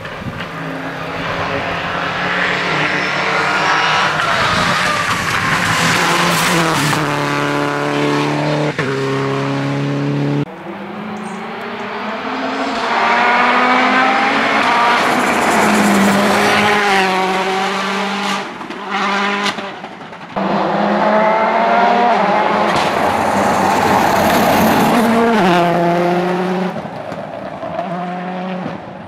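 Rally cars running flat out through a stage, their engines revving high with pitch climbing and dropping on throttle and gear changes. It comes as three separate passes joined by abrupt cuts at about 10 and 20 seconds.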